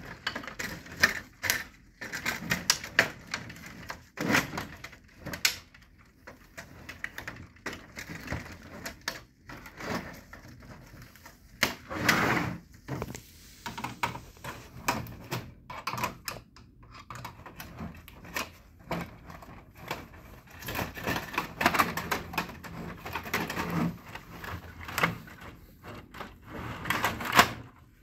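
Plastic clicks, creaks and scrapes from an HP LaserJet Pro 4001n's plastic side cover being pried off its snap latches with a flathead screwdriver, with a few louder knocks among irregular small clicks.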